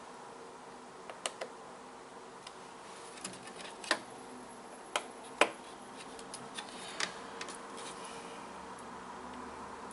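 Small screwdriver and screw clicks and taps as the replacement screen panel is screwed into a laptop lid. It is a scattered handful of sharp ticks, two close together about a second in and the loudest around halfway through.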